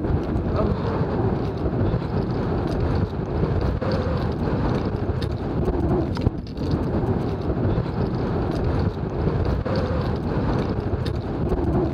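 Wind buffeting the microphone, with footsteps on a stony path and small metal gear jingling as the walker moves.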